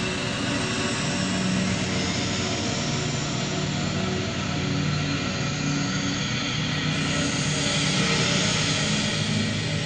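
Steady droning music accompanying a dance: sustained low tones under a rushing hiss, with no beat, the hiss brightening a little about two-thirds of the way through.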